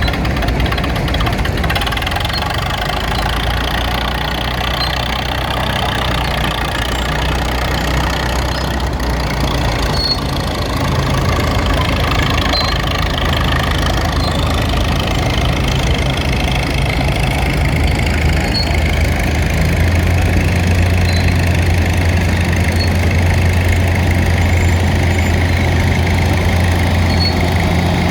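Farm tractor engines running at low speed, one after another. The low engine note shifts as one tractor gives way to the next, and it grows louder in the last third.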